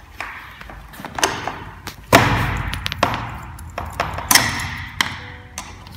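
A string of sharp clicks and knocks as an Allen key is fitted and worked in the hinge of a PVC window sash, with a faint brief squeak near the end.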